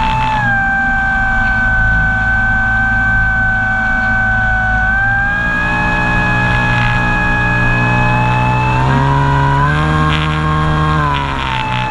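A radio-controlled model airplane's motor and propeller running steadily in flight, heard from a camera on board. The pitch drops about half a second in, climbs in steps partway through, and falls again near the end as the throttle changes.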